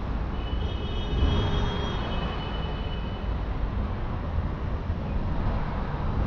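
City street traffic noise: a steady low rumble of passing vehicles, with a high-pitched whine over the first few seconds.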